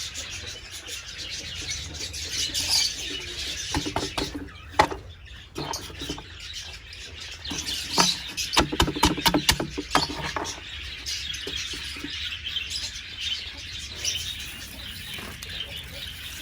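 Small caged birds chirping steadily. Clusters of sharp clicks and rustles from hands handling the nest box and nesting material come about four seconds in and again around eight to ten seconds.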